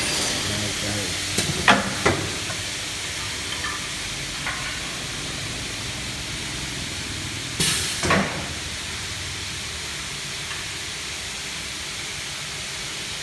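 DB455 45-degree aluminium-cutting saw running steadily between cuts. There are two sharp knocks about two seconds in and a short clattering burst about eight seconds in.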